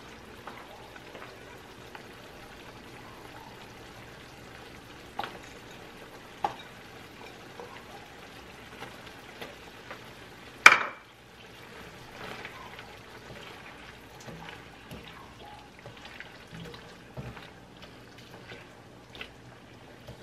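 Chicken simmering in sauce in a non-stick wok, a steady low sizzle with a few light spatula taps on the pan. About halfway through comes one loud, sudden splash as cubed raw potatoes are dropped into the sauce.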